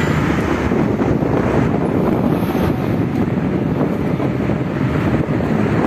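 Wind rushing over the microphone, steady and loud, over the noise of a moving vehicle on the road.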